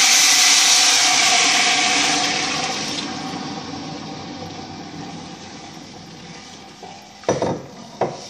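Water poured into a hot pan of sautéed mung beans, spices, onions and garlic, hissing and sizzling loudly, the hiss fading steadily over several seconds. Two sharp knocks near the end.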